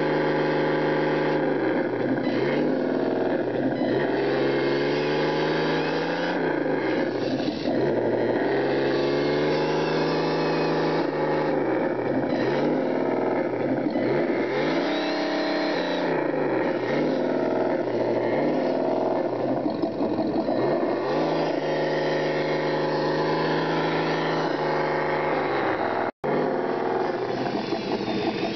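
Motor of a radio-controlled scale Toyota FJ45 pickup running as it works through mud, revving up and down over and over with its pitch rising and falling. The sound cuts out briefly near the end.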